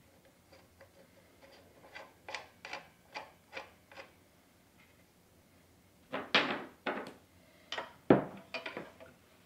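Scattered light clicks and knocks as a new saw blade is handled and seated onto the spindle of a Triton TA235CSL circular saw. There is a louder clatter about six seconds in and a heavier knock about eight seconds in.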